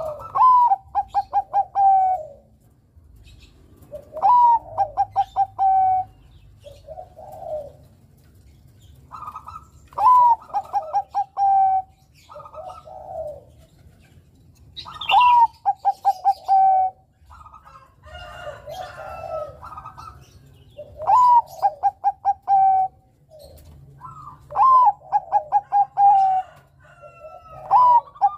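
A zebra dove (perkutut) of the Thai 'Bangkok' type sings its cooing song about seven times, a few seconds apart. Each phrase opens with a high note, runs into a quick stutter of short notes and ends on a long lower note. Softer, shorter coos fall between the phrases.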